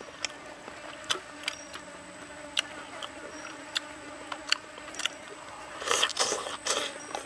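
Close-up eating by hand: scattered wet clicks and smacks as fingers pick at chicken and leaves, then a louder burst of biting and chewing about six seconds in as a mouthful of greens goes in. A faint steady insect buzz runs underneath.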